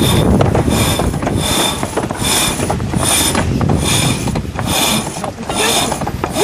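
A yacht halyard running through a block at the mast as crew haul it hand over hand, making a short whirring squeal with each pull, roughly every two-thirds of a second. Wind and water rush underneath.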